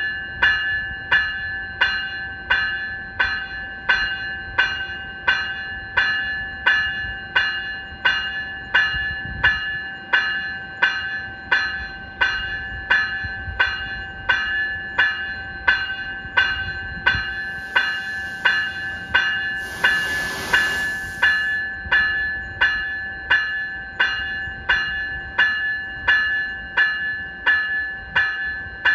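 Graham-White electronic bell on an NCTD Coaster cab car ringing steadily: a high-pitched ding repeated about one and a half times a second, each strike ringing on into the next. A burst of hiss comes in about two-thirds of the way through.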